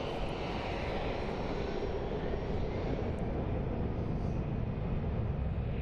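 Jet airliner engines running: a steady low rumble with a broad rushing hiss.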